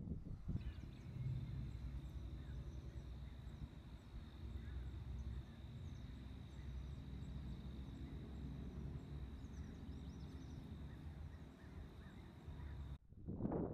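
Open-air meadow ambience: a low wind rumble on the microphone, a thin steady high tone with a few faint bird chirps above it, and a short louder rush near the end.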